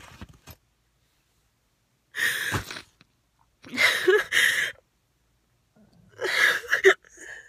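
A young woman crying: three short, breathy sobs, with silence between them.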